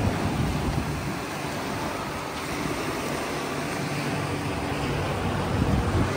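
Gulf surf washing up on a sand beach, with wind gusting across the microphone in a steady, rumbling roar.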